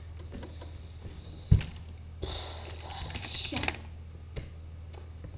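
Quiet computer keyboard typing and a few clicks over a steady low electrical hum, with a single dull thump about a second and a half in and a soft hissy stretch in the middle.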